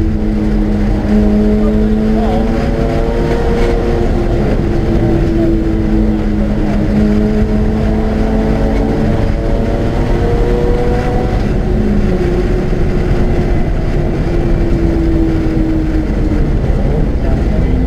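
Mazda RX-8's twin-rotor Wankel rotary engine pulling hard at track speed. Its note slides slowly in pitch, dips around twelve seconds in, then climbs again, over a steady rush of road and wind noise.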